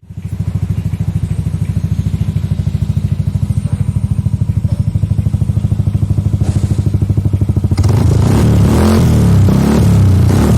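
Yamaha NMAX 155 scooter's single-cylinder engine idling through an aftermarket full-system exhaust, a steady low throb of evenly spaced exhaust pulses. About eight seconds in, louder music comes in over it.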